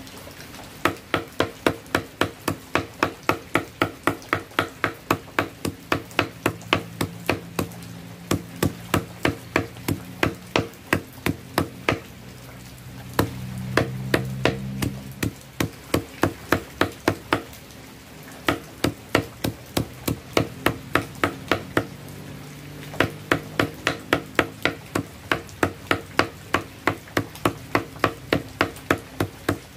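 Machete blade chopping fermented coconut husk fibre against a wooden block, shredding it into cocopeat: rapid, even chops about three a second, in runs broken by a few short pauses.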